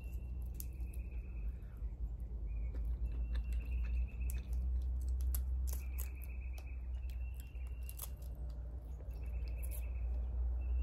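Cooked Dungeness crab shell clicking and crackling as meat is picked from it by hand. A high buzzy trill repeats every second or two in the background over a steady low rumble.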